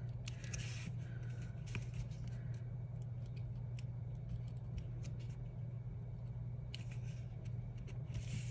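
Correction-tape dispenser rolled across a paper sticker: a faint scratchy rasp in short strokes, about half a second in and again near the end, with light clicks of handling, over a steady low hum.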